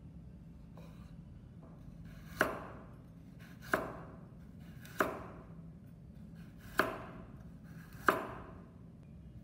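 Kitchen knife slicing a carrot on the bias and striking a wooden cutting board: five sharp knocks, about one every second and a half, each dying away quickly.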